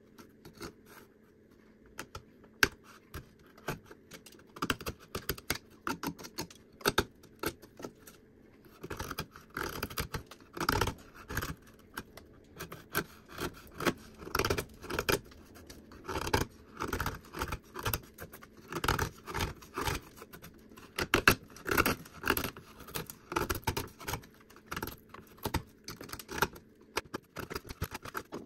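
Carving knife slicing and scraping cottonwood bark in many short strokes, sparse at first and coming quick and close from about nine seconds in.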